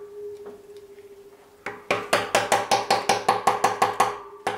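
Hammer tapping on metal at the oil pan of a Rolls-Royce Meteor V12, each tap ringing with a clear tone. A pause with only a faint lingering ring, then a single tap and a fast run of taps, about six a second, from about two seconds in.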